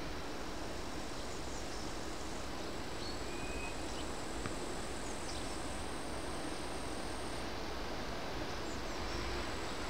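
Trackside outdoor ambience: a steady low rumble and hiss with a thin high insect whine, and a few short bird chirps about three to four seconds in.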